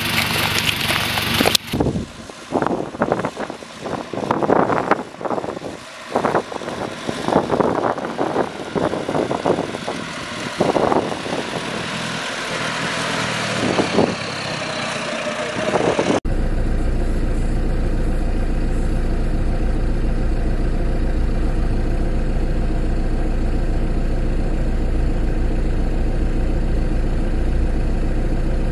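Wind buffets the microphone in uneven gusts while a Ford Ranger pickup crawls over a rough track. After a sudden cut about halfway, a pickup's engine runs steadily at low revs as it wades through a river ford.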